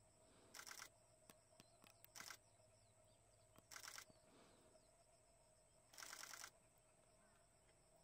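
Camera shutter firing in four quick bursts of rapid continuous shots, each lasting a fraction of a second, the last the longest.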